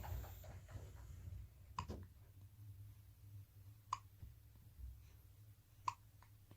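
Newborn baby hiccupping: three short, sharp hiccups about two seconds apart.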